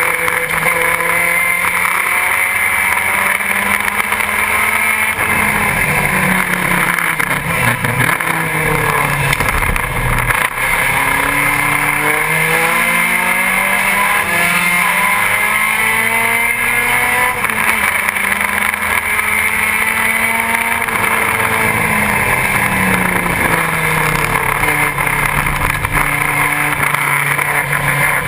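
BMW 2002 race car's four-cylinder engine at racing revs, heard from inside the cabin. Its pitch repeatedly falls and climbs in steps, lowest about eight to ten seconds in and dropping again near the end.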